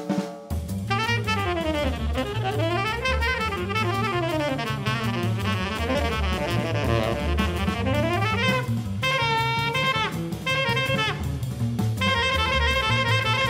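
Jazz trio of tenor saxophone, double bass and drum kit playing. The saxophone plays quick runs that sweep up and down, then breaks into separate held notes over the walking bass and drums.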